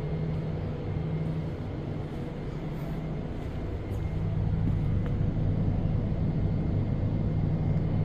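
Steady low running hum of a North East Line metro train, heard from inside the car, growing louder about four and a half seconds in as the train moves off.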